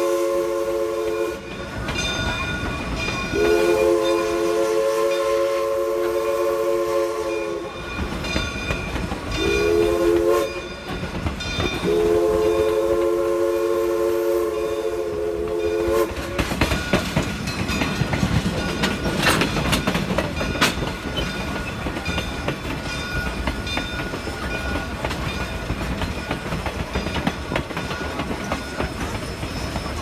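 Southern 2-8-0 No. 401's steam whistle, a chord of several tones, sounding the grade-crossing signal: long, long, short, long. From about halfway through, the train runs on with its wheels clattering over the rail joints.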